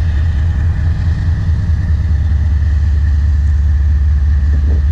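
Diesel freight locomotives working as the train pulls slowly through the yard: a steady low rumble with a faint steady high tone over it.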